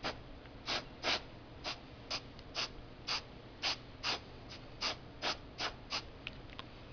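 Airbrush spraying paint in a quick series of short spurts, about two a second, a dozen or so in all, stopping about six seconds in.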